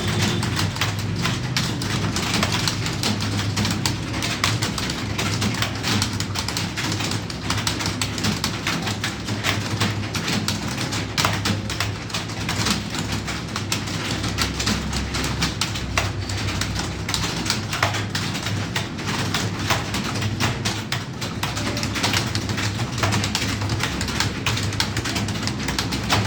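Computer keyboard being typed on quickly and unevenly, a steady clatter of key clicks over a low, steady hum.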